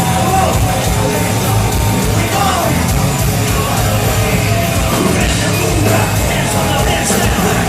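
Live rap-metal band playing loud and steady with heavy bass, with shouts from the crowd over the music.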